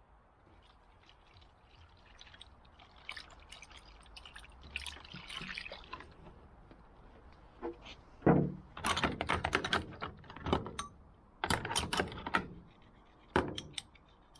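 Liquid pouring for a few seconds, then a run of sharp clinks and knocks as metal hand tools are handled in and against a container, the loudest knock about eight seconds in.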